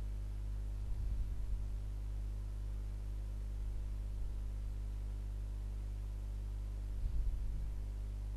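Steady low electrical hum with a faint buzz of evenly spaced overtones, unchanging throughout; a couple of soft low bumps about a second in and again near the end.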